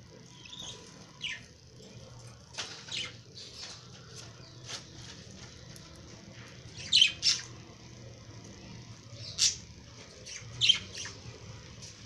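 Lovebirds squawking: a scatter of short, shrill calls, the loudest a quick pair about seven seconds in and two more single calls later.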